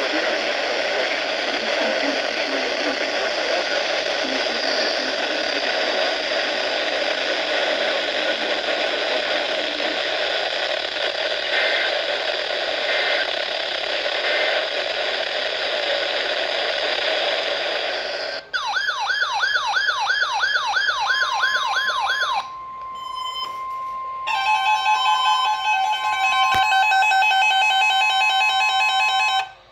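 Weather radio static hiss, then about 18 seconds in a fast warbling electronic alarm starts. It is followed by the NOAA Weather Radio 1050 Hz warning alarm tone, a steady tone with a receiver's repeating alarm beeps over it, which cuts off suddenly just before the end.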